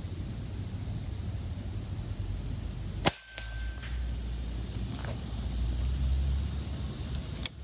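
A single shot from a Hatsan Nova QE .25 calibre PCP air rifle, its barrel shrouded with a sound moderator: one sharp crack about three seconds in.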